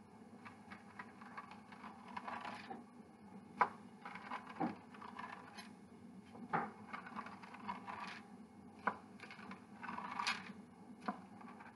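Pizza cutter wheel rolling through pie dough on parchment paper: faint, uneven scraping strokes with several sharp clicks as the wheel is set down and lifted.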